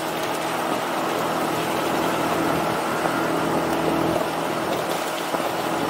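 Small 125 cc scooter engine running steadily at cruising speed, heard from the rider's seat over wind and road noise.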